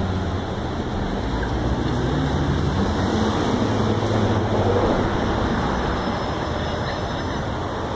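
City street traffic on wet pavement: a steady wash of tyre hiss and engine hum.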